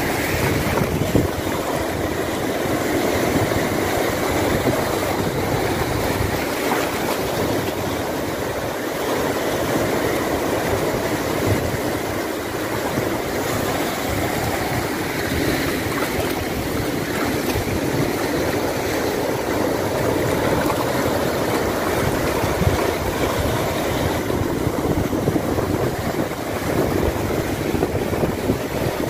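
Rough ocean surf breaking over rocks: a steady rushing wash of waves and foam.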